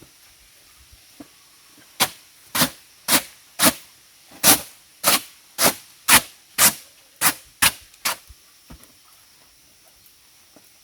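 A run of about a dozen sharp chopping blows on wood, roughly two a second, with a slightly longer gap near the middle.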